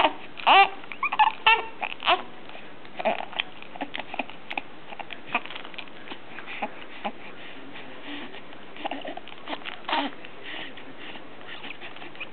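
Young infant cooing: several high, gliding coos in the first two seconds, then softer, scattered little vocal sounds.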